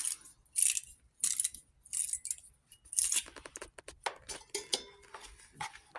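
Brush scrubbing a corroded battery ground-cable terminal in short, irregular scraping strokes, roughly two a second, with light metallic clinks. The strokes are cleaning off corrosion for good contact.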